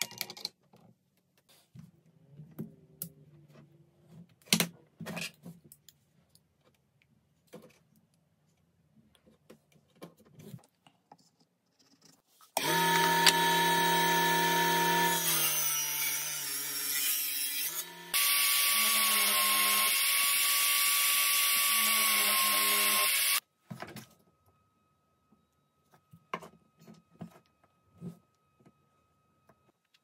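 A small electric power tool runs in two bursts of about five seconds each, the first starting about twelve seconds in and the second ending near the three-quarter mark, with a steady motor hum. Light knocks and clicks of wooden parts being handled come before and after the bursts.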